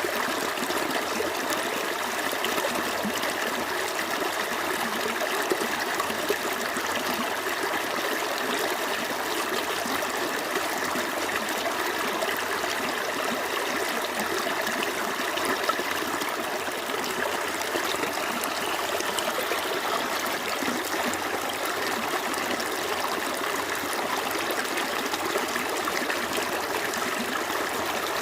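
Small stream flowing steadily over rocks, a continuous babbling and trickling rush of water.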